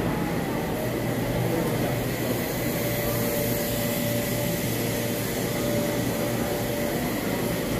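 A steady mechanical hum with a low drone and a faint high whine, and a held mid-pitched tone joining about two and a half seconds in.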